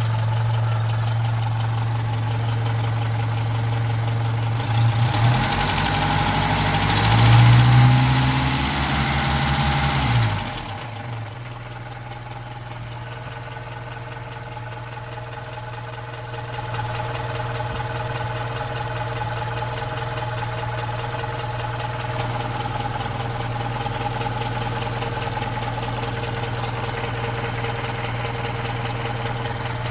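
Opel Rekord P1's four-cylinder engine idling with the clattering its owner recorded it for. About five seconds in it is revved briefly, then it drops back to a steady idle about halfway through.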